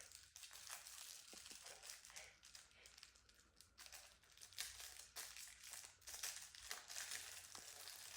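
Faint, irregular crinkling and rustling of packaging being handled.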